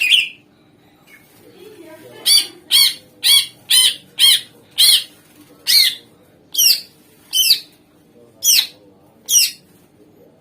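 Green leafbird (cucak ijo) singing a loud series of about a dozen short, sharp notes, each sweeping down in pitch. They come roughly two a second and slow a little towards the end, after one loud note at the very start.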